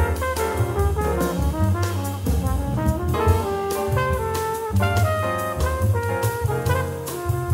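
Small-group jazz playing: a horn plays a busy melodic line of many quick notes over a moving bass line and drum kit with cymbal strokes.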